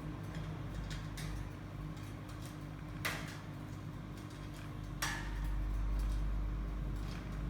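A steady low hum with faint scattered ticks, and two sharp clicks or knocks, about three seconds in and about five seconds in; the hum grows louder after the second click.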